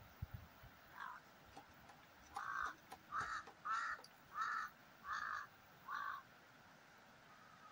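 A crow cawing: one call about a second in, then a steady run of six caws about 0.7 s apart that stops about six seconds in.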